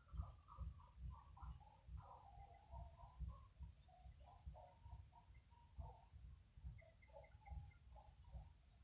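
Faint outdoor ambience: insects shrilling steadily in a high, constant tone. Scattered faint bird chirps and an irregular low rumble run underneath.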